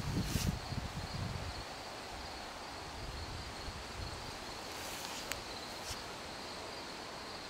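Steady high insect chirring of outdoor ambience, with footsteps through grass and camera handling in the first second or so. A faint click comes about five seconds in.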